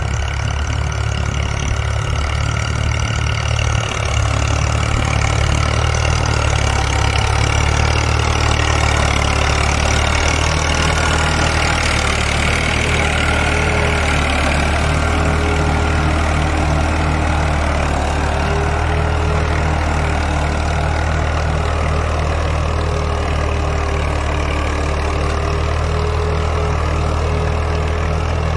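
Tractor diesel engine running steadily under load as it pulls a five-tine plough through the soil, a continuous low hum.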